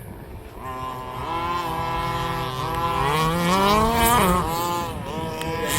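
Two-stroke petrol engines of large-scale RC cars running and revving. The pitch climbs about three seconds in, drops just after four seconds and dips briefly again near five.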